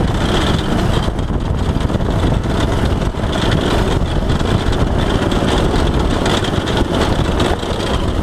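Go-kart's small engine running steadily under way on a dirt track, with frequent short rattles and knocks.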